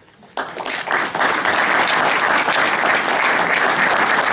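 Audience applauding: clapping starts about half a second in, swells within a second and carries on steadily.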